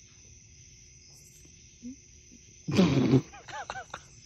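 Animal-like vocal cries: a loud, rough cry about three seconds in, then a quick run of about four short high yelps, over a steady background of crickets.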